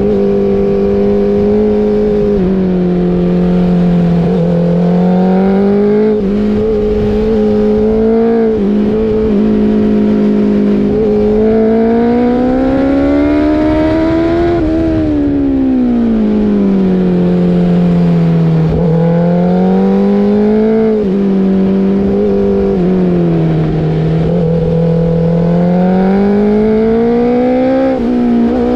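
BMW superbike's engine running hard, its pitch climbing and falling several times as the throttle is opened and rolled off, with the longest climb about halfway through.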